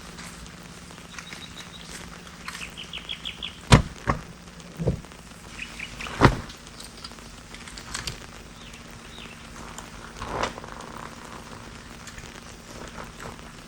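A bird chirping in a quick run of short notes, and again a few seconds later, over a steady low hum and hiss. A few sharp knocks sound in the middle.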